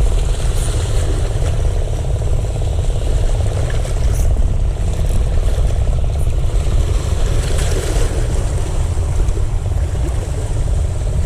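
A small engine running steadily under heavy low wind rumble.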